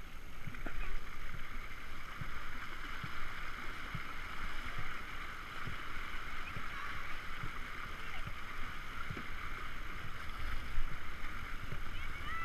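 Dragon boat under way with a full crew paddling hard: a steady rush of water along the hull, with paddle blades splashing and knocking at the strokes, over low wind rumble on the microphone.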